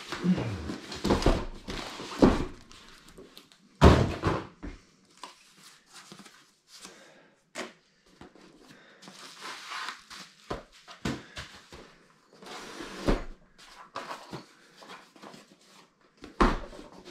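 Cardboard boxes being opened and handled: flaps and sides rubbing and scraping, with thumps as the boxes are knocked about and set down on a wooden table. The loudest thump comes about four seconds in.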